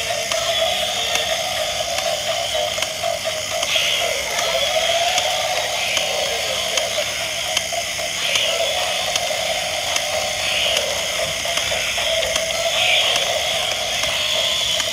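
Battery-powered walking dinosaur toys running: their plastic gear mechanisms whir with fast, steady ratcheting clicks, over a steady droning tone.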